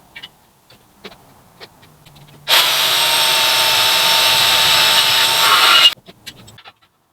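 A power tool runs at full speed for about three and a half seconds, starting suddenly about two and a half seconds in and cutting off just before the end, with small clicks and handling knocks before and after.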